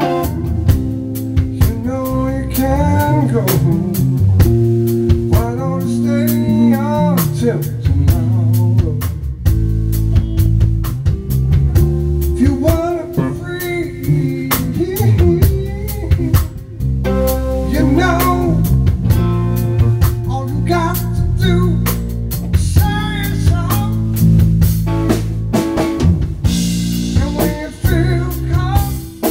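Live band playing a soul-blues song: a male voice singing over a Telecaster-style electric guitar and a drum kit with rimshots.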